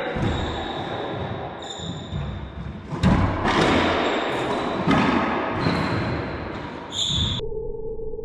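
A racquetball rally in an enclosed court: the ball cracking off rackets and walls with a strong echo, and sneakers squeaking on the hardwood floor. A little past seven seconds the court sound cuts off abruptly, leaving only a steady low tone.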